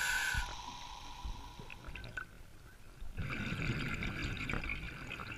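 Background music cuts off about half a second in, leaving muffled underwater sound heard through a camera housing. About three seconds in comes a stretch of crackly bubbling, typical of a scuba diver breathing out through the regulator.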